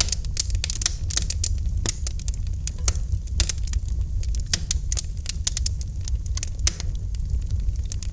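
Campfire crackling: irregular sharp pops and snaps from the burning wood, several a second, over a steady low rumble.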